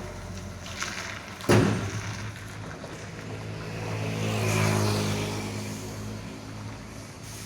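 Diesel engine of a Hino tronton truck running and revving up about four seconds in, then easing back. A single sharp knock about one and a half seconds in is the loudest moment.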